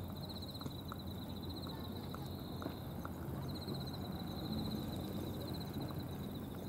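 Outdoor ambience: a high, rapidly pulsing insect trill that comes in repeated trains with short gaps, over a low steady rumble, with a few faint short chirps in the first few seconds.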